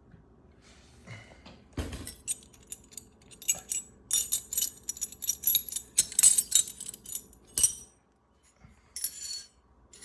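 Metal wrenches and hand tools clinking and clattering against each other as they are handled. A quick run of sharp clinks runs from about two seconds in to near eight seconds, then there is a shorter rattle near the end.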